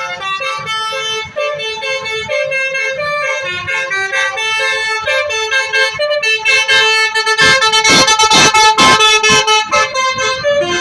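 Bus 'telolet basuri' musical air horn playing a tune of stepped notes. About two-thirds of the way in it turns to rapid pulsing blasts, the loudest part.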